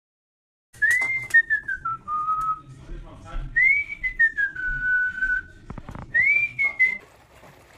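A person whistling three long notes. Each rises quickly, then slides down and holds, with scattered knocks and a low rumble underneath.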